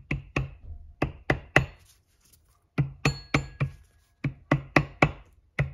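Soft-faced mallet tapping gently on the aluminium housing of an Alpina B7 centrifugal supercharger, in quick runs of three to six taps with short pauses between, some leaving a brief metallic ring. The taps drive the two housing halves together to close the gap between them and seat them.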